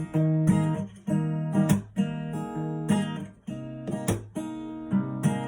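Acoustic guitar strumming chords without vocals, each strum ringing on until the next.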